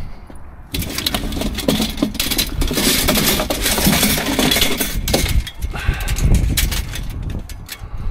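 Coiled metal wire hoops and metal strips clinking and rattling against each other as they are picked up and gathered into an armful, a dense clatter over the first five seconds that thins to lighter rattling as they are carried.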